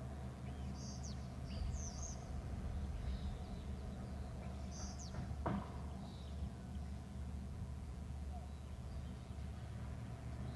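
Birds chirping briefly a few times over a steady low hum, with a single sharp click about halfway through.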